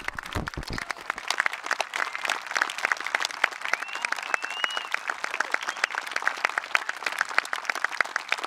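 Audience applauding, a dense spatter of hand claps with some sharp claps close by.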